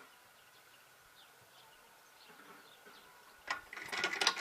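Faint bird chirps, then about three and a half seconds in a click followed by quick mechanical clicking and rattling: the kick-starter of a Minsk two-stroke motorcycle being kicked over.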